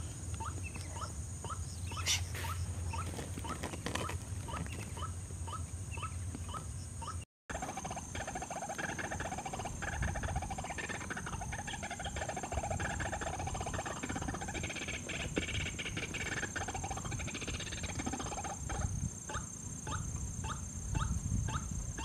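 White-breasted waterhens calling: short calls repeat evenly at about two to three a second, with a denser stretch of overlapping calls in the middle. A steady high-pitched whine runs underneath.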